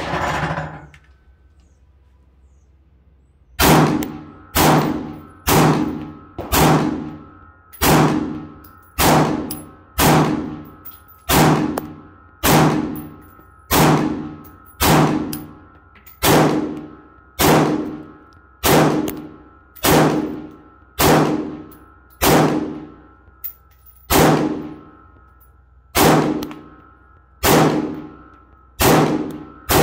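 A run of about two dozen shots fired one after another in a mag dump, evenly spaced about a second apart. Each is a sharp metallic clang that rings out briefly before the next, and they start a few seconds in after a short lull.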